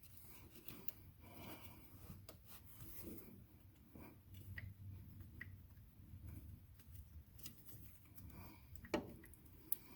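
Faint, scattered clicks and scraping of metal as an electric PTO clutch is worked up onto its keyed shaft, with a slightly louder knock about nine seconds in.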